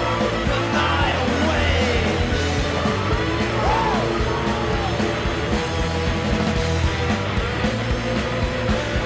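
Rock band recording with electric guitars, bass guitar and drums at a steady beat, with a few notes sliding up and down in pitch.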